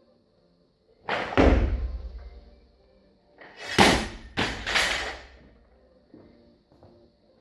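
Barbell loaded with bumper plates hitting the rubber-matted floor: a heavy thud with a deep rumble about a second in, then several sharper clanking impacts around the middle as the bar bounces and is stopped. A few light knocks follow near the end.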